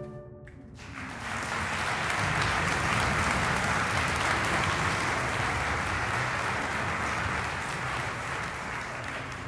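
The last ring of a full orchestral chord dies away, and about a second in an audience breaks into applause that carries on steadily, easing off a little near the end.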